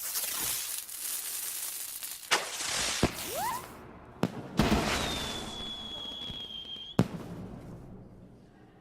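Fireworks going off: a loud hissing rush with crackle, several sharp bangs, and a short rising whistle about three seconds in. From about five seconds a high, steady whistle sounds, sagging slightly in pitch, and a bang cuts it off at about seven seconds before the sound fades.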